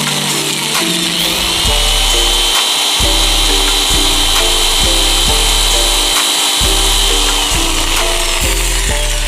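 Electric drill running, drilling a screw hole through a PVC shaft connector piece: a high motor whine that spins up about a second in, holds steady, then winds down near the end. Background music with a bass line plays under it.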